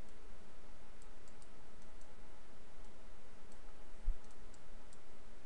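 Faint scattered clicks of a computer mouse over a steady low hum of background noise, with one low thump about four seconds in.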